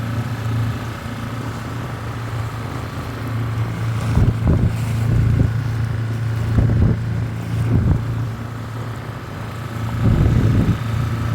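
Mercury outboard motor running at a steady pitch, with gusts of wind buffeting the microphone now and then.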